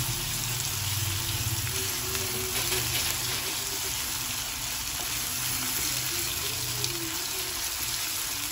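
Onions, green chillies and a wet ground masala paste sizzling in oil in a nonstick pan, stirred with a wooden spatula. A steady low hum lies under it until about seven seconds in.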